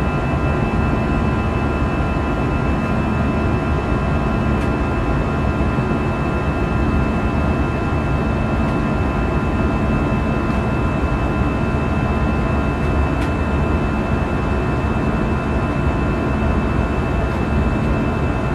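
Airbus A320's CFM56-5B turbofan engines at climb thrust heard from inside the cabin: a steady rushing roar with several steady high tones over it, the fan's buzzsaw noise.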